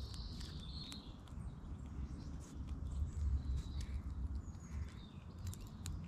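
Eastern grey squirrel eating seeds and nuts from a dish close to the microphone: irregular sharp clicks and crunches as it cracks and chews. A few faint bird chirps come in the first second and again later, over a low rumble.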